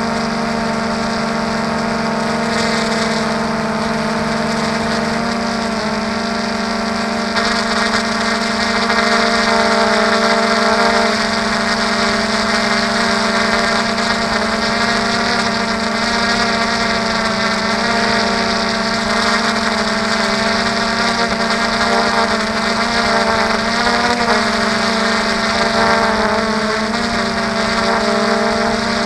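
Multirotor drone's motors and propellers whining steadily, heard close up from on board, as it hovers and slowly descends. The pitch shifts slightly now and then, and it grows a little louder about seven seconds in.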